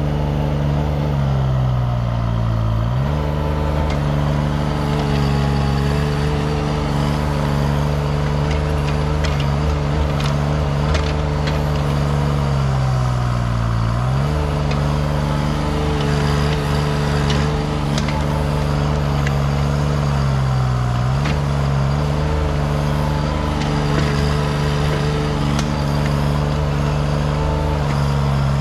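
Diesel engine of a 6,000 lb mini excavator running hard while digging a trench, its pitch sagging and recovering three times as the hydraulics load it down. A few short, sharp knocks come through partway in.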